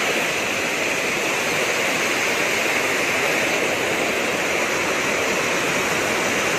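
Floodwater rushing steadily out of an open spillway gate of the Nagarjuna Sagar dam: a continuous, even sound of water pouring down the concrete spillway as the dam releases flood discharge.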